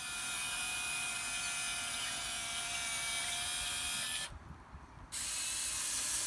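Huina 1580 RC excavator's small electric motors and gear trains whining steadily as the machine slews and works its boom and arm. The whine stops for about a second just after four seconds in, then starts again.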